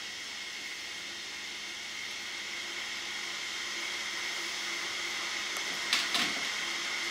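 A steady mechanical hum and hiss with two constant tones, growing slightly louder, with two short clicks about six seconds in.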